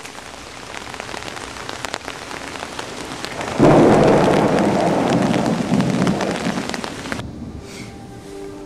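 Steady rain with a roll of thunder that breaks in suddenly about three and a half seconds in and slowly dies away. The rain cuts off abruptly near the end.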